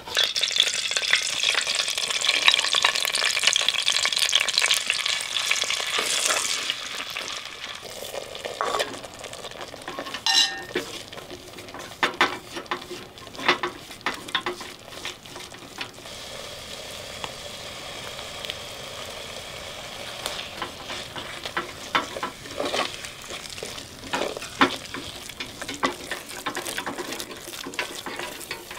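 Walnut and herb mixture sizzling in a hot clay pot, loud for the first six seconds or so and then quieter. Through the rest, a wooden spoon stirs and scrapes the mixture, with scattered clicks against the pot.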